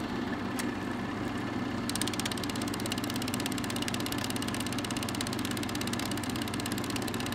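Film projector sound effect: a steady mechanical whir with a low hum, under a rapid, even clatter of the film running through the gate that grows stronger about two seconds in.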